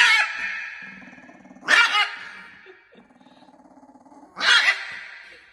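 A dog growling low and steadily, breaking into three loud barks about two seconds apart.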